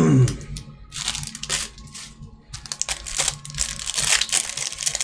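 Plastic trading-card pack wrapper being torn open and crinkled in the hands, an irregular run of crackling rustles.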